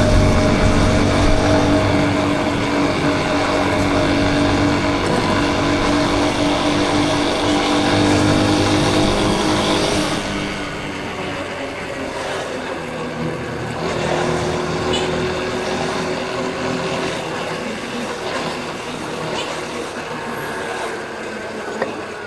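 Yamaha Crosser 150's single-cylinder four-stroke engine running under way, heard from the rider's helmet camera together with air rush. It holds a steady pitch for about ten seconds, then the engine eases off and the sound drops to a quieter, lower mix.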